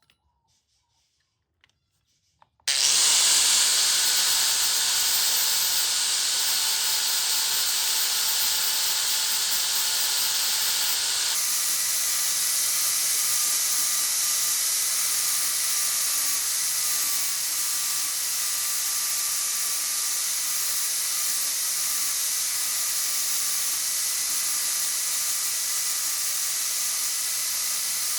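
A power tool switches on suddenly about three seconds in and runs steadily: a loud hiss with faint steady whining tones, shifting slightly near the middle.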